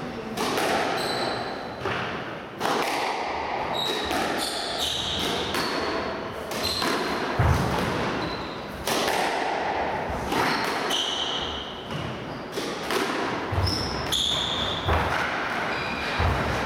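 Squash rally: the ball struck by rackets and smacking off the walls every second or so, with short high squeaks of shoes on the wooden court floor between the hits, echoing in the hall.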